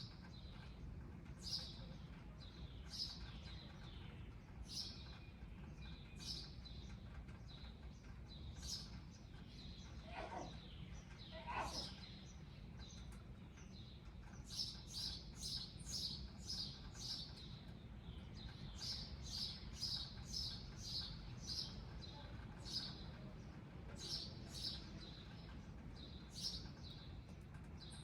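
Small bird chirping over and over: short, high chirps that slide downward, often in quick runs of several at a time, with a lower falling call about ten seconds in. A steady low outdoor hum lies underneath.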